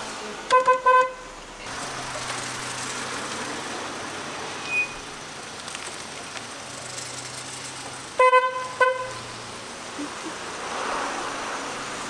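A car horn giving a quick burst of short toots about half a second in, and another burst about eight seconds in. Steady engine and road noise runs underneath.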